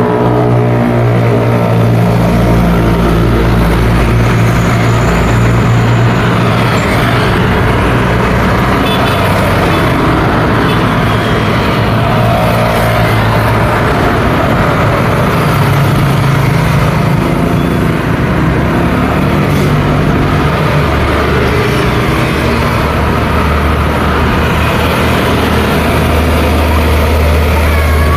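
Road traffic passing at night: cars, trucks and motorcycles, with continuous engine and tyre noise. A heavy truck's low engine hum grows loudest near the end as it passes close by.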